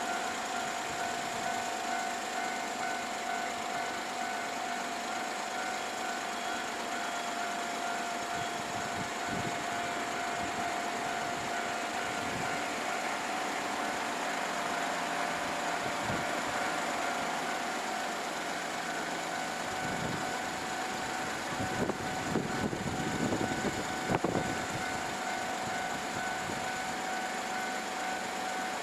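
Japanese railway level-crossing warning alarm ringing steadily, its electronic bell repeating without pause while the crossing is closed for an approaching train. A few louder knocks and rumbles come about three-quarters of the way through.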